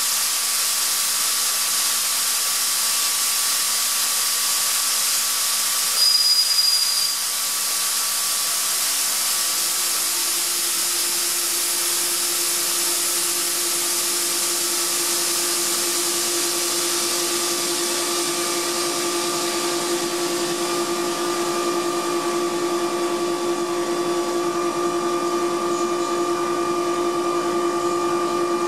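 Atlas Copco ZR 110 FF two-stage oil-free screw air compressor running: a steady hiss with a few steady tones. A short, louder high whistle comes about six seconds in, and a low hum grows stronger from about ten seconds in.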